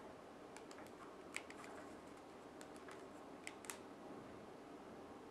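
Faint, irregular clicks of the small plastic keys on an iRiver Story e-book reader's built-in keyboard as a search word is typed in, over a steady low hiss.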